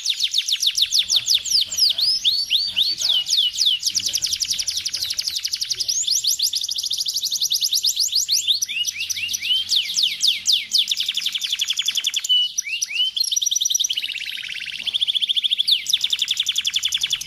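Domestic canary singing a long, continuous song of fast, high-pitched rolling trills and quick chirps. There is a short break about twelve seconds in, then a lower, drawn-out phrase before the fast trills return.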